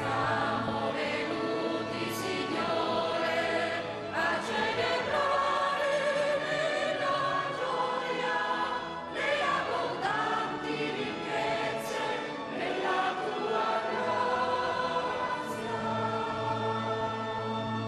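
Mixed church choir of women and men singing a hymn together, several voices sustaining a melody.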